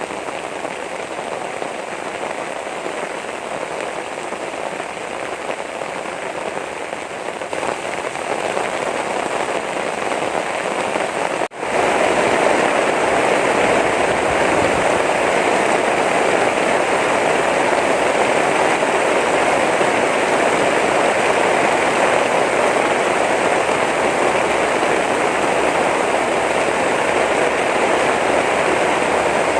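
Heavy rain falling steadily. It grows louder about a quarter of the way in, breaks off for a split second near the middle, and then comes back heavier and steady.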